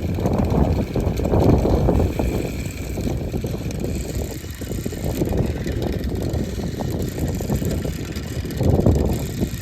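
Strong gusty wind buffeting the microphone, a low rumbling noise that swells about a second in and again near the end.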